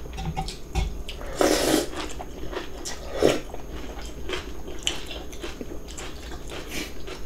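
Close-up eating sounds of cold radish-kimchi noodles and steamed dumplings: chewing and lip smacks with many small clicks, and a short loud slurp about a second and a half in, with a smaller one near the middle.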